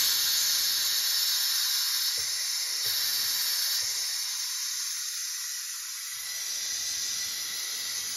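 Electric pressure cooker releasing its pressure once cooking is done: steam hissing steadily and strongly out of the pressure-release valve.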